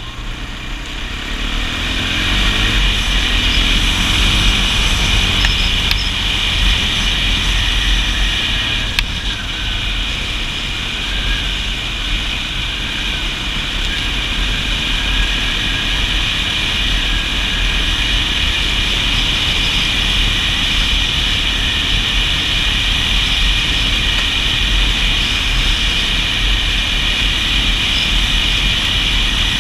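Kawasaki KFX400 ATV engine running under way, revving up over the first few seconds and then holding a steady cruise, with a low rumble of wind on the camera microphone.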